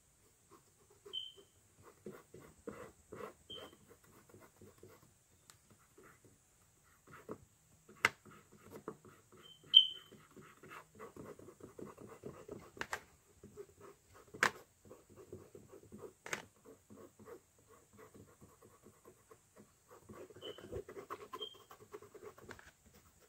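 Paintbrush strokes scratching on a canvas, with a few sharp taps and several very brief high chirps scattered through.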